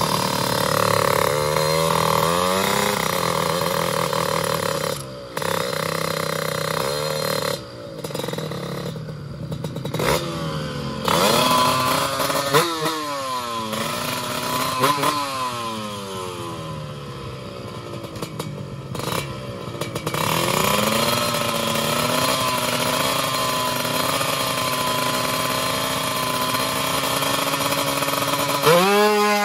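Drag-racing motorcycle engine revved at a standstill, its pitch swinging up and down with repeated throttle blips, with a few brief drops in level. About a second before the end the revs climb sharply as the bike pulls away.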